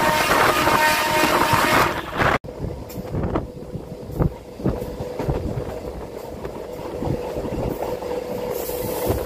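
MEMU electric train running along the track, heard from alongside the coach. For the first two seconds there is loud wind on the microphone over the running noise. After a sudden cut it turns to a quieter rumble of wheels on rail, with irregular clacks over rail joints and a steady hum.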